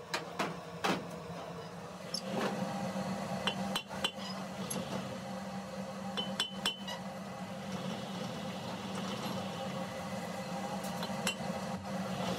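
Hammer striking a Hino truck's drive shaft tube held in a lathe: several sharp metallic clinks with a short ringing tone, at irregular intervals. A steady machine hum runs underneath.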